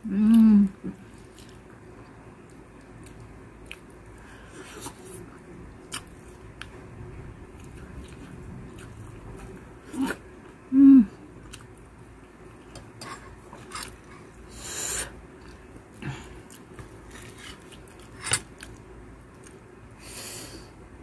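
A woman eating grilled fish up close, with quiet chewing and scattered lip smacks. She gives a short appreciative 'mmm' hum right at the start and another about eleven seconds in, and there are a few short breathy hisses.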